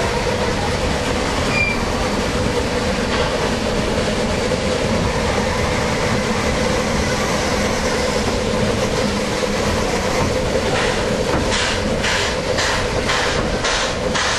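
Passenger train of open cars running over a trestle: a steady rolling rumble with a constant squeal-like tone from the wheels. From about eleven seconds in a regular beat of sharp hissy puffs joins it, about two a second.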